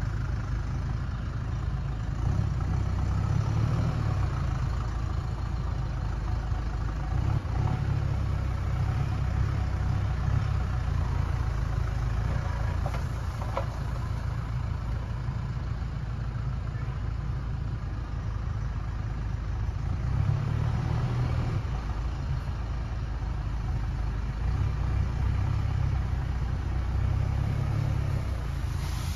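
Tractor engine running under load as its front loader lifts and dumps compost; the low engine note swells and eases several times.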